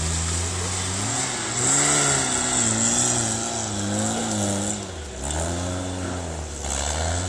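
Off-road 4x4 trial buggy's engine revving hard under load as it climbs a steep muddy slope, the pitch rising and falling with each burst of throttle. The revs drop briefly about five seconds in, then pick up again.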